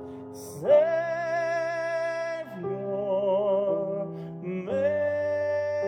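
Worship song being sung: a voice holds long, slow notes with vibrato, sliding up into a new note about half a second in and again near the end, over sustained instrumental backing.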